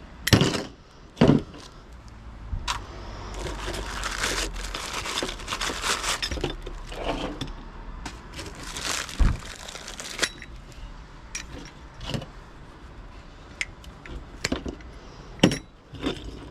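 Scrap parts being handled and sorted by hand: a few sharp metallic clanks and knocks, with a stretch of jangling, rustling clatter in the middle.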